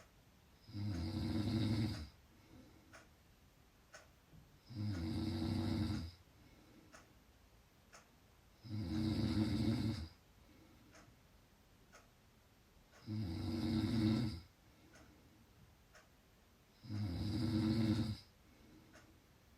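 Loud snoring: five snores, each lasting a little over a second, coming about once every four seconds with quiet gaps between.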